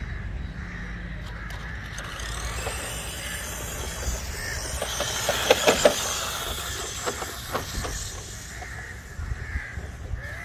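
Electric RC rock crawler truck driving over a grass field: a steady running hiss, with a cluster of clicks and knocks from about five to seven and a half seconds in. Crows caw a few times near the end.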